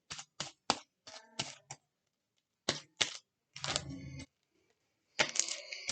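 Slime being worked by hand, giving a run of irregular sharp clicks and pops with two longer squelching stretches, one in the middle and one near the end.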